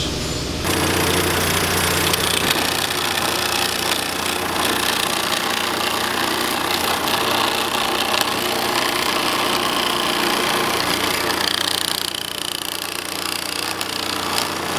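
Nibbling machine running, its punch chattering rapidly through the end of a metal airframe tube held in a jig as it cuts a fish-mouth notch. It starts about half a second in.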